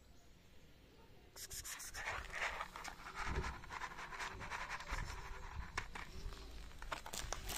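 A paper plate of dry cat food is set down and pushed over gravelly dirt, making scraping and rustling with many small clicks of grit and kibble. It starts about a second and a half in.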